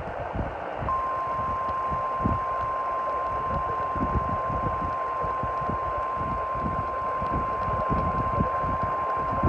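A single steady 1050 Hz weather-radio alert tone, the NOAA Weather Radio warning alarm that precedes an emergency alert message, starting about a second in over hissy, crackly radio reception.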